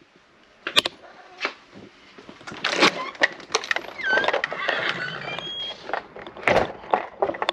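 Irregular knocks and clatter of split firewood pieces being handled and dropped, with a few short squeaks about halfway through.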